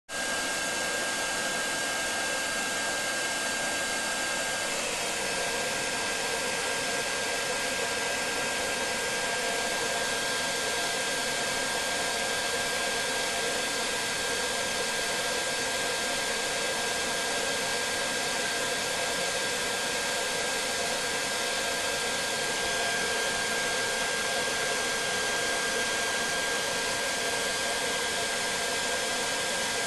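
Hair dryer running steadily: an even rushing of blown air with a thin, high steady whine from its motor.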